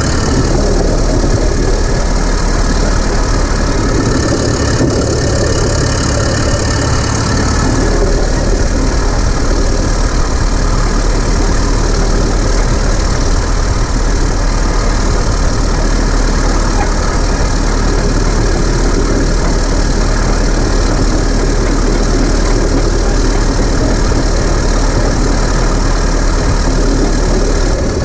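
Caterpillar D7 3T crawler dozer's four-cylinder diesel engine running steadily as the dozer crawls, loud and close.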